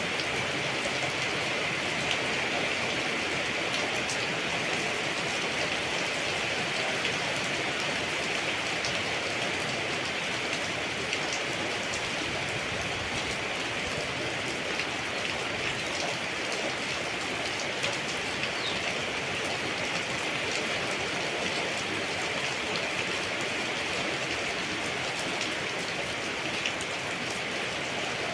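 Steady rain falling: an even hiss with scattered sharper taps of individual drops.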